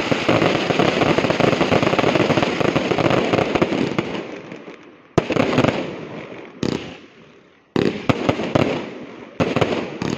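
Aerial fireworks display: a dense run of bangs and crackling for about four seconds that then fades out, followed by four separate loud shell bursts, each trailing off in crackle.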